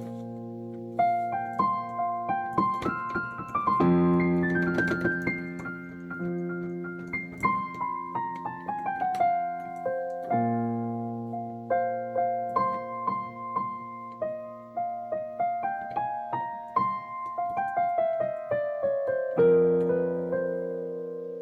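Solo piano playing: held low chords with a melody of many quick single notes above them. The chord changes about four, ten and nineteen seconds in.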